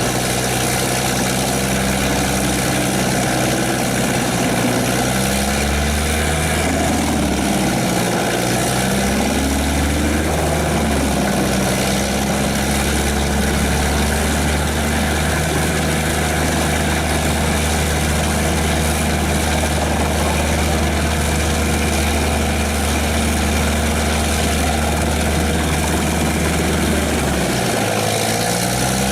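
Heavy engine of a tracked forestry wood chipper running loudly, with a broad machinery hiss over it. The engine note sags and recovers a few times, about a quarter of the way in and again near the end.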